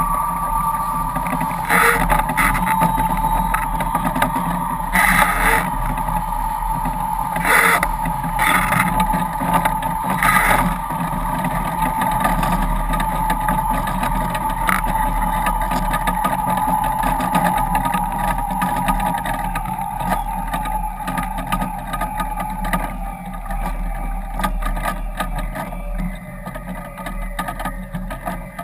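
Foiling sailboat rushing through choppy water at speed: a steady rush of water and spray under a high whine that slowly drops in pitch and fades near the end. Several short splashes of spray hit the hull and camera in the first ten seconds or so.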